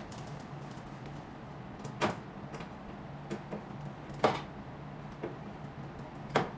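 Screwdriver work and handling of a machine's plastic side panel: three sharp clicks about two seconds apart, with lighter ticks between them.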